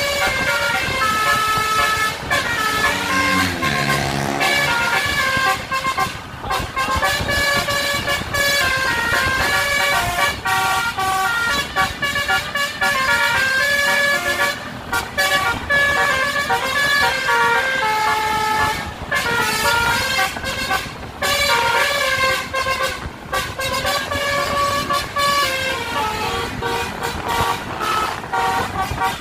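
Bus basuri horn, a multi-tone melody horn, playing tunes in quick stepped notes with short pauses between phrases, over vehicle noise.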